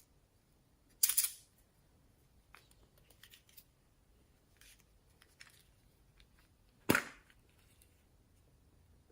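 Glossy slime being handled, with two sharp pops, one about a second in and a louder one near seven seconds, and faint small crackles and clicks between.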